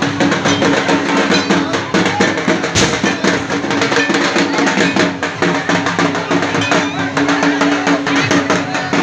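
Loud festive music driven by dense, steady drumming, with a held tone running under it and crowd voices mixed in.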